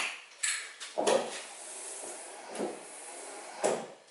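Short metallic knocks and clicks of windscreen wiper arms being handled and fitted onto a VW Bay Window campervan. There are a few in a row, with a sharp one at the start and louder ones about a second in and near the end.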